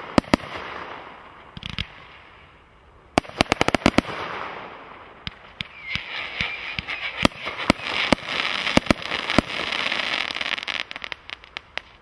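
Brothers Pyrotechnics 'Fire One' single-ignition firework cake firing: sharp bangs of bursting shots, a rapid volley about three seconds in and more scattered bangs with crackling between them later, dying away near the end.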